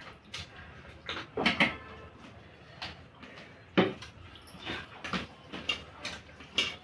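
Close eating sounds: hands mixing rice and gravy on steel plates, with chewing and mouth noises in irregular short bursts, the loudest about one and a half and four seconds in.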